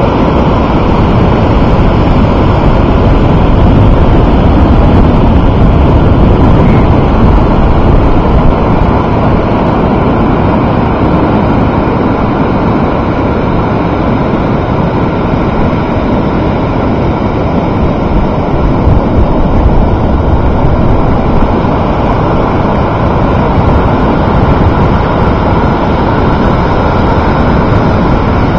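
Steady, loud noise of wind buffeting the microphone, mixed with ocean surf.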